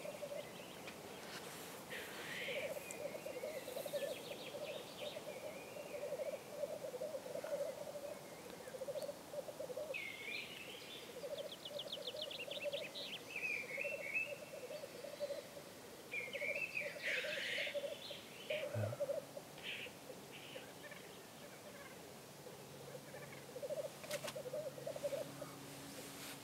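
Black grouse cocks lekking: the continuous bubbling, cooing song of several males, broken about three times by louder hissing 'sneeze' calls.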